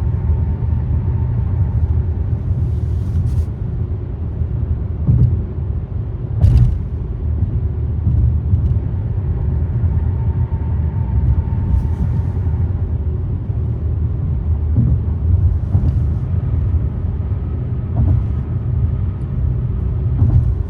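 Steady low rumble of a moving car, with a few faint clicks.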